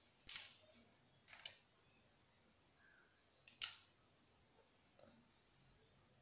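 A few sharp clicks and taps of kitchen utensils being handled and set down on a hard surface: one near the start, then two quick pairs, about a second and about three and a half seconds in.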